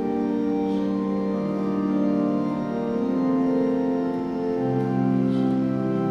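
Organ playing slow, held chords, with a low bass note entering about two thirds of the way through.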